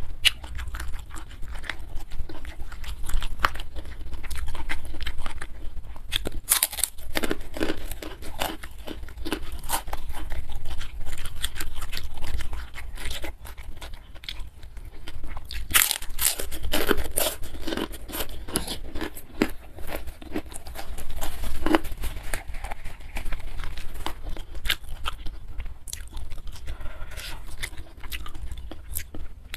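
Close-miked chewing and biting with crunches and wet mouth clicks, in irregular runs, over a steady low hum.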